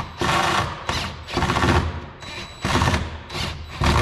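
Cordless DeWalt impact driver hammering in repeated short bursts as it tries to back out a door-panel screw that will not come out.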